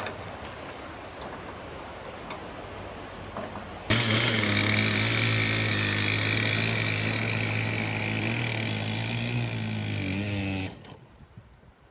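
Stihl 088 chainsaw's two-stroke engine at high revs driving a surface-drive boat propeller, a loud steady note that starts suddenly about four seconds in and stops suddenly near the end. Before it there is a quieter steady noise.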